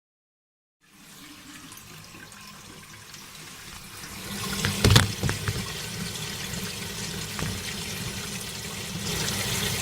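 Water running and splashing in a toilet fitted with a Geberit concealed cistern, starting about a second in and growing louder, with a few sharp knocks about five seconds in and a louder rush near the end.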